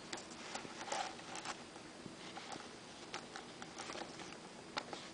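Faint, irregular light taps and rustles of fabric and Velcro being handled and positioned at a sewing machine.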